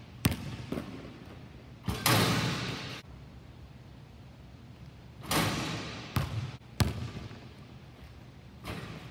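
A basketball bouncing on a hardwood gym floor, with two louder crashes, about two and five seconds in, as the ball slams against the rim and backboard of a portable hoop on dunk attempts, each ringing on for about a second. Single sharp bounces come near the start, twice more a little after six seconds, and near the end.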